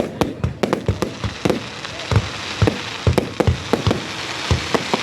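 Fireworks going off in a fast, irregular series of bangs and pops, with a crackling hiss swelling through the middle.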